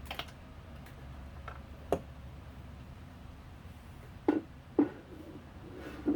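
A handful of separate knocks and clicks, two of them close together past the middle, from hands working at the sewing machine while it stands still.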